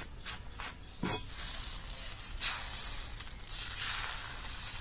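A few quick strokes of an oiled cloth rubbing a cast-iron chitoi pitha mould, then, from about a second in, a hissing sizzle as rice-flour batter is poured into the hot cups. The sizzle swells in waves as each cup fills.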